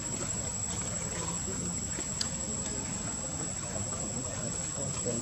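A steady, unbroken high-pitched insect trill from a cricket or cicada, over a faint outdoor hiss.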